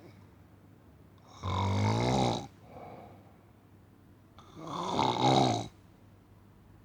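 A person snoring: two long snores, each lasting about a second, about three seconds apart, with a fainter breath between them.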